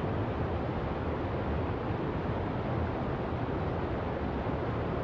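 Steady rushing noise with a deep low rumble underneath and no distinct events.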